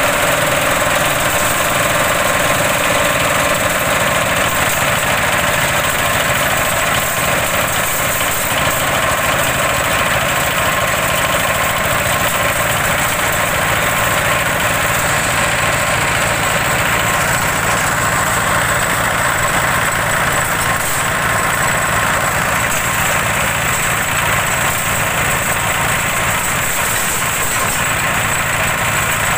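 Small stationary engine running steadily at raised throttle, driving a 12-blade organic-waste chopper that is shredding material into compost.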